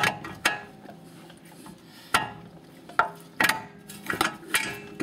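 Irregular sharp metal clinks and taps, about nine of them, bunched toward the end, as a new outer tie rod end's stud is worked up into the steering knuckle's tapered hole.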